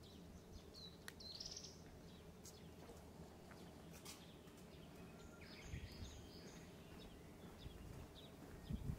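Near silence outdoors, with faint small-bird chirps: one curved call about a second in and a short cluster of chirps around six seconds in, over a low steady background hum.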